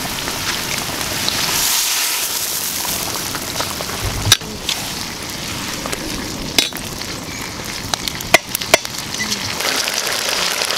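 Steady hissing and bubbling of spiced water boiling hard in a large aluminium pot over a wood fire, with a few sharp knocks in the second half.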